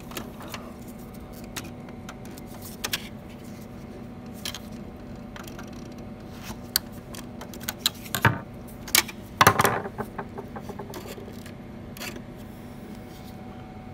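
Scattered plastic clicks and scrapes as a screwdriver pries the latch of a laser printer's pick-up roller and the roller is worked off its shaft. A louder run of clicks and rattles comes about eight to ten seconds in.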